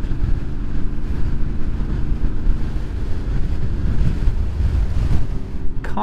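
Strong gusty wind buffeting the microphone of a moving motorcycle, a heavy uneven rumble, with the Honda VFR's V4 engine droning steadily underneath at cruising speed.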